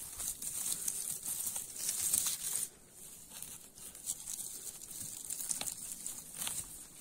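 Dry grass, pine needles and twigs rustling and crackling as a hand parts them and pulls a porcino mushroom from the ground. The sound is loudest for the first two and a half seconds, then softer with a few sharp crackles.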